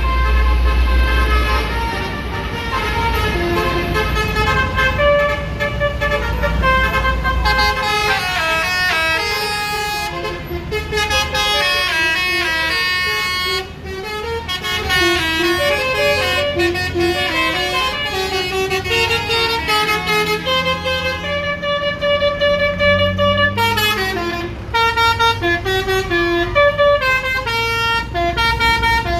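Telolet musical bus horns playing tunes, the notes stepping up and down in pitch and overlapping, over the low rumble of bus engines that is heaviest in the first few seconds.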